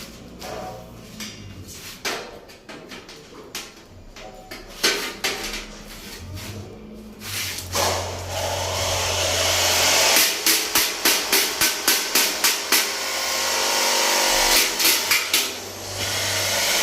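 Tool work on a steel cable tray: scattered knocks and clanks, then about eight seconds in a louder steady machine noise with quick regular taps, about four a second.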